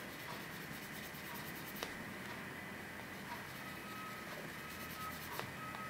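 Fine sandpaper rubbed by hand over a small model-kit part, a faint steady scratching, with one light tick about two seconds in.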